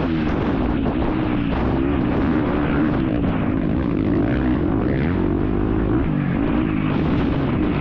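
Off-road dirt bike engine heard close up from on board, its revs rising and falling constantly as the throttle is worked.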